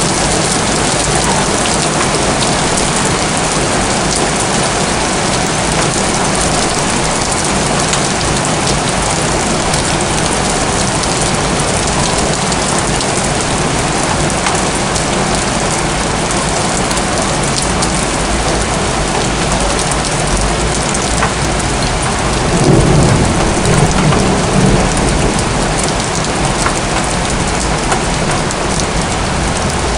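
Steady heavy rain falling on rooftops, with a low rumble of thunder about three-quarters of the way through, lasting a couple of seconds.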